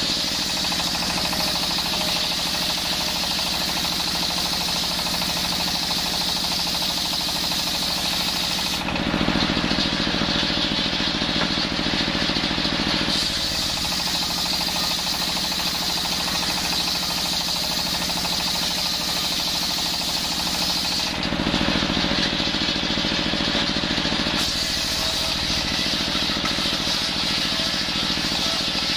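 Belt-driven table circular saw ripping coconut wood into rafter strips: a hiss of the blade cutting over the steady running of the machine that drives it. The cutting hiss stops twice, about nine and about twenty-one seconds in, for a few seconds each time while the blade spins free between passes.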